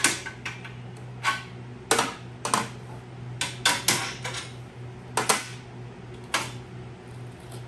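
Metal parts and hand tools clinking and clacking at an ATV's rear hitch while a tow-strap mount is fitted: about a dozen sharp, irregular metallic clicks, over a steady low hum.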